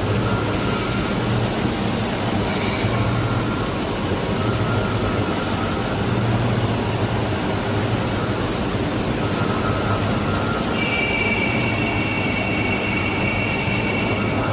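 Orbital ring stretch-wrapping machine running: a steady mechanical noise from the rotating ring, its drive and the roller conveyor, with a thin whine that comes and goes. A steady high squealing tone joins about eleven seconds in.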